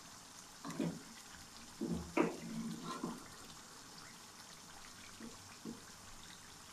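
Thick masala gravy with separated oil bubbling in a wok around beef trotters, with a low steady simmer and a few soft plops and pops in the first three seconds.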